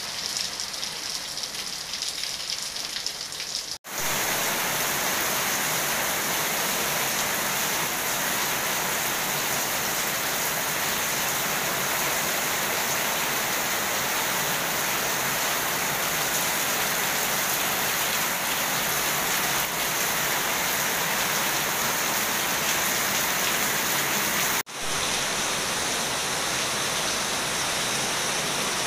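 Heavy rain falling steadily on a swimming pool and wet paving, a dense even hiss. It drops out for an instant twice, about four seconds in and again near the end, and is louder after the first break.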